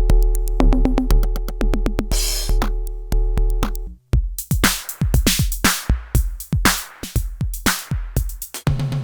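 IK Multimedia UNO Drum, a hybrid analog and PCM drum machine, playing programmed beats. The first pattern has long booming analog kicks under steady pitched tones. About four seconds in it stops, and after a brief gap a different pattern of crisp, quick hits starts.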